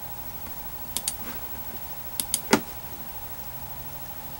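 Sharp computer clicks: a quick pair about a second in, another pair just after two seconds, then one louder click or knock right after. These are clicks from selecting photos and applying an auto-fix in editing software.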